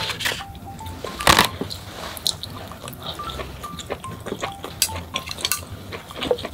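Close-miked eating sounds: chewing and wet mouth noises with scattered clicks of wooden chopsticks on a plastic tray, and one sharp clack about a second in. Faint background music of single held notes runs beneath.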